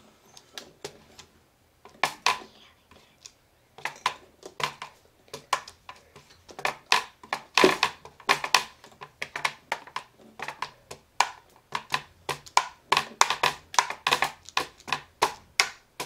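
Hard plastic taps on an Etch A Sketch Freestyle drawing pad, drummed on like a drum set. Scattered clicks at first, then a quick, uneven run of taps from about six seconds in.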